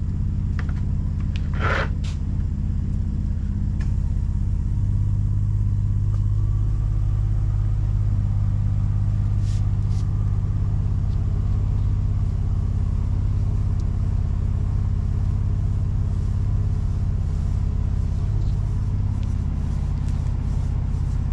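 Steady low engine or motor hum that gets slightly stronger about five seconds in, with a short higher-pitched sound about two seconds in and a few faint clicks.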